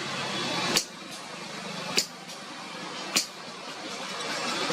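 Hammer striking iron on an anvil in three sharp, ringing blows about a second and a bit apart, over a steady hum of street traffic.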